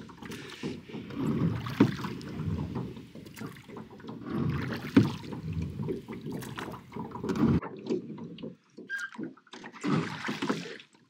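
Oars working a small wooden rowing boat: a knock from the oars about every three seconds over a low rush of water and wind. The rowing sound drops away about two thirds of the way through, leaving quieter water sounds.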